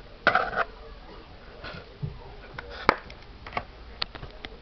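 A home-built, passively Q-switched Nd:YAG laser firing, giving irregular sharp clicks over the second half, the loudest about three seconds in. Near the start there is a short breathy noise.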